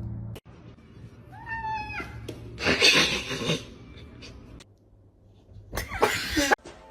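A cat gives one short meow about a second and a half in. This is followed by two loud noisy bursts, one around the middle and one near the end.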